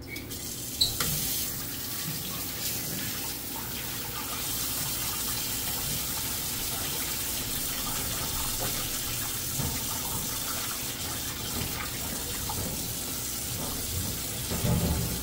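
Water running from a faucet into a stainless steel sink and splashing onto a plate being rinsed by hand. The tap comes on just under a second in, and the flow then runs steadily.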